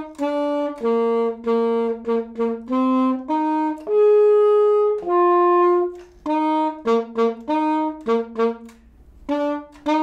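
Alto saxophone played loudly, a melody of short tongued notes with two longer held notes in the middle, ending on two short accented notes.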